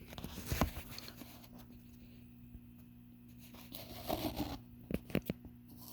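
Quiet handling noise: a few light clicks and rustles of parts and hands being moved, a cluster of them around four to five seconds in, over a steady low electrical hum.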